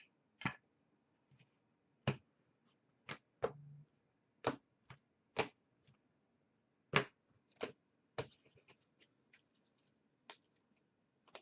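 Sharp clicks and snaps at an irregular pace of about one a second, from trading cards being handled and laid down on a table, with a brief low hum about three and a half seconds in.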